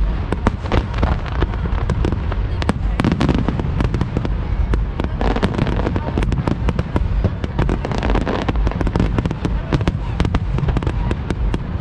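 Fireworks display: aerial shells bursting in a rapid, continuous string of bangs and crackles, several a second, over a steady low rumble.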